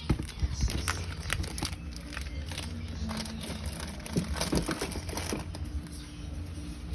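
Plastic snack packaging crinkling and rustling as it is handled, with irregular small clicks and taps, over a steady low hum.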